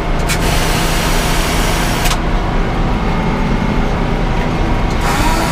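Sawmill engine running steadily under a loud hiss that fills the first two seconds, drops away, and returns near the end.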